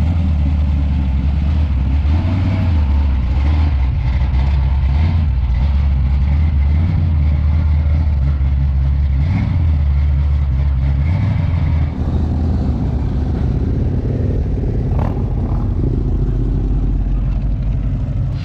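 Classic muscle car engine running close by at low revs, a deep uneven rumble whose pitch rises and falls with light throttle.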